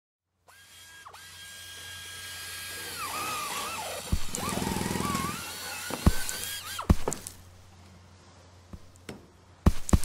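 Edited intro sound effects. A steady high whine swells in loudness, then turns into a warbling whirr with a low buzz partway through. Several sharp knocks come through the middle and near the end.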